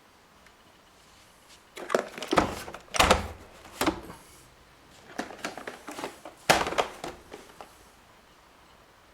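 Robot vacuum being handled: a series of knocks, clicks and thumps from its parts, in clusters, with the loudest thumps about two, three and six and a half seconds in.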